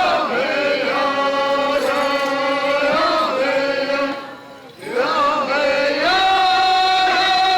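Chanting in long held notes, sung without drums or instruments, with a short break about four seconds in before the next long note.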